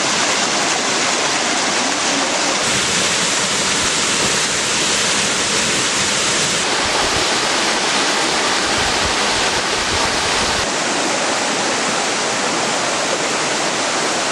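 Waterfall: a steady, loud rush of falling water, with a low rumble swelling for a few seconds past the middle.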